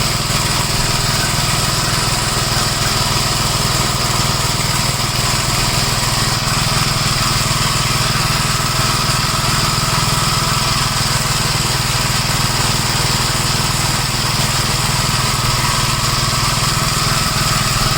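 1969 Gravely walk-behind tractor's engine running steadily under load while its mower deck chops up leaves.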